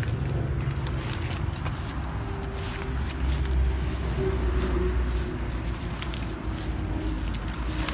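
Light rustling and scraping of cut leaves swept by a gloved hand across a concrete pot rim, over a low steady rumble that swells for a couple of seconds near the middle.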